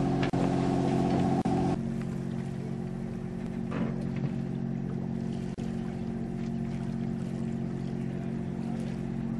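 A boat's engine running steadily, a low hum made of several steady tones. About two seconds in, the hum drops a little in level and loses some of its higher tones.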